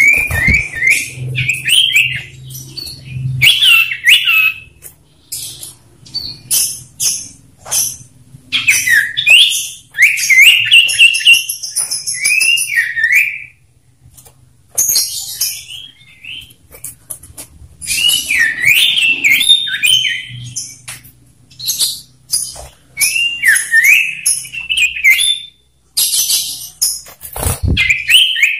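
Male common ioras calling against each other: phrases of loud whistled notes that swoop up and down come every few seconds, with short sharp high chattering notes between them.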